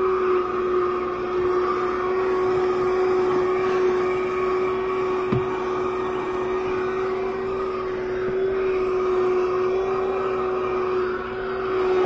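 NUWA 12-volt, 100 W cordless handheld car vacuum running steadily with a constant motor whine while it sucks up dirt from a car's floor, pulling strongly. A single light knock sounds about five seconds in.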